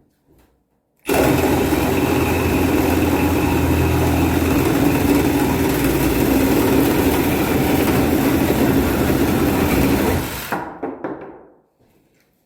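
Milwaukee M18 Fuel cordless reciprocating saw with a Diablo 9-inch nail-embedded wood blade cutting metal pipe under the saw's own weight, with no added pressure. It starts abruptly about a second in, runs loud and steady for about nine seconds, then trails off near the end.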